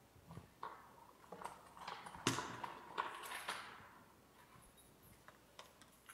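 Light knocks, clicks and rustles of a person moving about and handling things, bunched in the first four seconds with the loudest knock about two seconds in, then a few fainter ticks.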